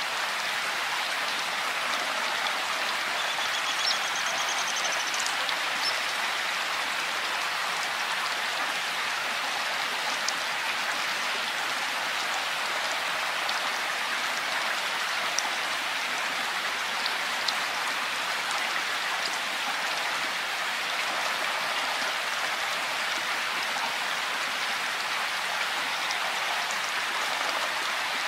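Rain falling steadily, an even hiss with scattered small drip ticks.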